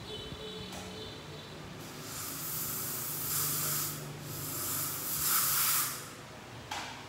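Dental air syringe blowing two hissing bursts of air, each about two seconds long, with a brief high whine in the first second and a short puff near the end.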